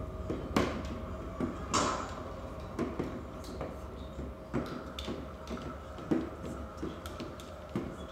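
Irregular light clicks and knocks of bobbins being moved on a braiding stand, over faint sustained tones.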